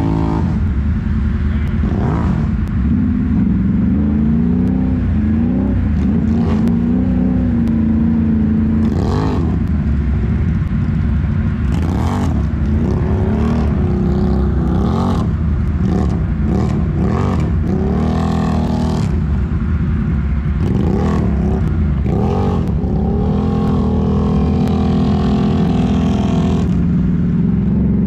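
Can-Am Renegade ATV's V-twin engine revving up and down as it ploughs through deep muddy water, with splashing now and then.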